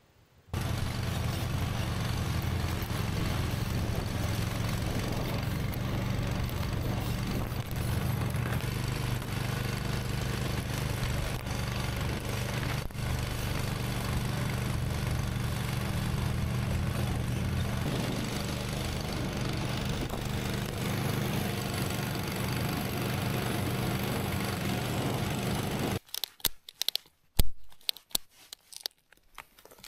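Snowmobile engine running steadily under way, starting about half a second in and cutting off suddenly near the end. It gives way to scattered clicks and rustles of a snowshoe binding being strapped on in snow, with one sharp snap that is louder than the engine.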